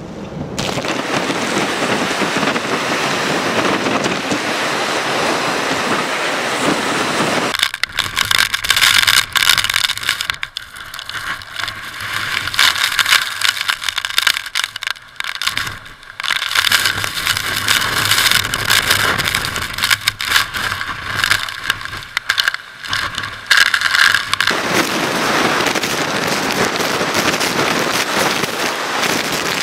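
Hurricane wind and rain rushing loudly, gusting in and out with sharp swells and brief lulls through the middle stretch.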